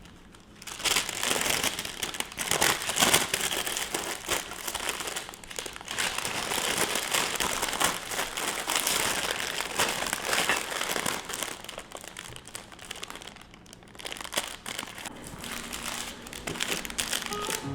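Crinkling and rustling of plastic or paper wrapping being handled, in dense irregular crackles with a short lull about three-quarters of the way through.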